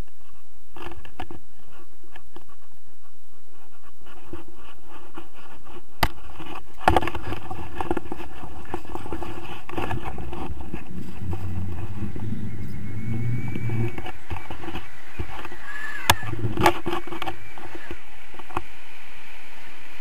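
Wind rumbling and buffeting on an action camera's microphone during a tandem paraglider's takeoff run and launch. The rumble swells in the middle, and a few sharp knocks and scrapes come from the harness and camera mount.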